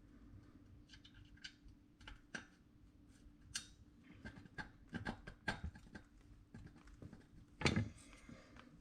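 Scattered light clicks and knocks of metal parts being handled as a replacement pressure-washer pump is worked onto the engine's crankshaft, a tight fit, with a heavier thump near the end.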